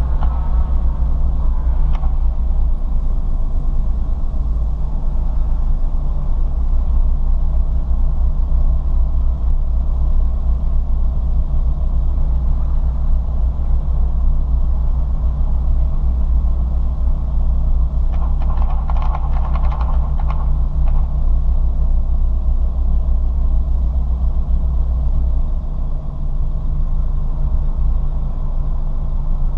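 Ford Fiesta ST heard from inside the car: a steady, loud low rumble of engine and road noise with no clear revving. About two-thirds of the way through there is a brief rattling, mid-pitched burst.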